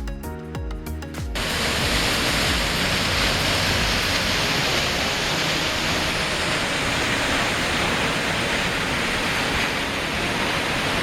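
Music cuts off about a second in, giving way to the steady roar of a waterfall, Peričnik falls, the water crashing continuously.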